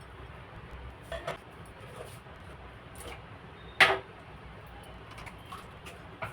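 Cooking utensils clinking and knocking against a pot: a few scattered clinks, the loudest about four seconds in, over a steady low background hiss.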